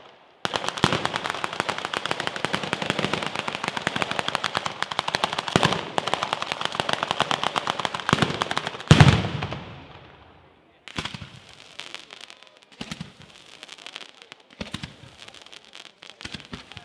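Ground-level fireworks batteria: firecrackers strung on wires going off in a fast, continuous rattle of bangs, many per second. About nine seconds in, one much louder bang with a deep boom ends the rattle. After a short lull, sparser and quieter pops and crackling follow.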